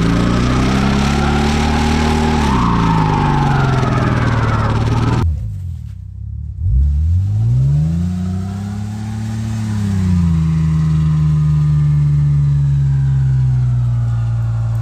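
Engine revving high and dipping as its tyres spin in a smoking burnout. After a sudden cut about five seconds in, an engine drops low, revs up once, then falls back to a steady idle.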